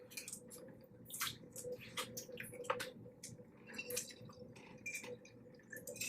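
Faint wet clicking and squishing of a boiled crab being cracked apart and eaten, in scattered irregular snaps, over a faint steady hum.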